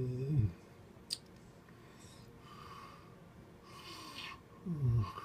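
Snoring: a low breath out that falls in pitch at the start and again near the end, with a rasping noisy breath in between, in a slow breathing rhythm.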